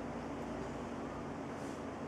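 A steady low hum with a constant hiss, unchanging throughout.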